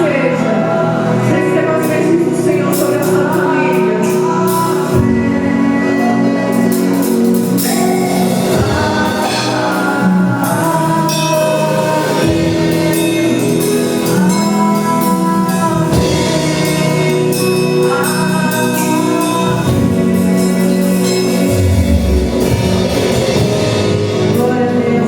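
Gospel worship song: voices singing together over a band, continuous and steady in level.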